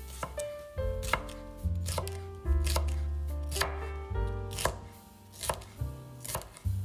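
Kitchen knife chopping food on a cutting board: a series of sharp single strokes, roughly one a second, over background piano music.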